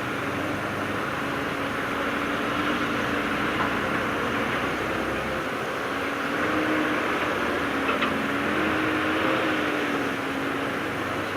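Diesel engine of heavy earthmoving machinery running steadily, its note rising and falling slightly a couple of times as the load changes, with a faint knock about eight seconds in.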